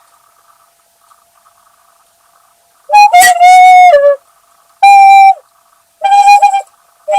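Recorder played in short, shrill, loud notes all at much the same pitch: three notes and the start of a fourth, beginning about three seconds in. The first and longest has a squeak near its start, and each note sags in pitch as it ends. Before them there is only a faint hum.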